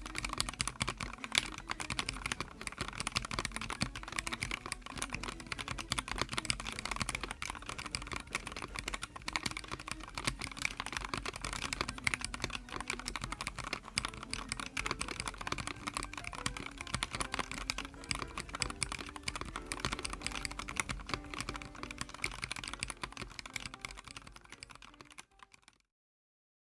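Continuous fast typing on a YUNZII X75 PRO gasket-mounted mechanical keyboard: a dense run of key clacks that fades out near the end.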